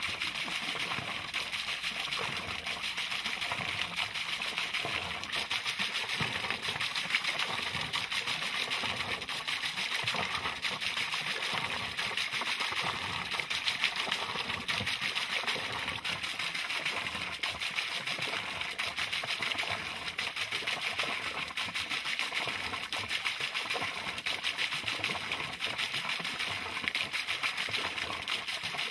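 Water falling from a spout onto a small wooden water wheel and splashing into a pond, a steady splashing and trickling.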